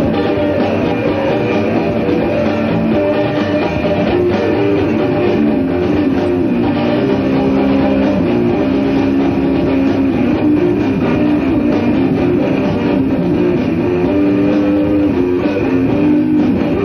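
A live rock band playing, with electric guitars over drums.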